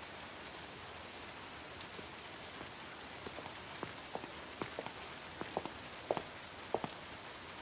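Rain falling steadily as a soft hiss, with single drops plinking on top, more and louder from about three seconds in.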